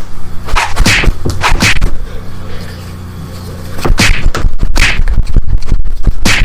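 Staged fist-fight sound effects: a quick run of punch hits and swishes. About two seconds in there is a pause of nearly two seconds, then another flurry of blows.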